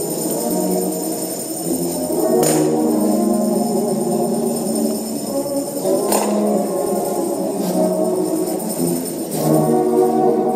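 Gospel music with held chords, punctuated by four sharp percussion hits a few seconds apart.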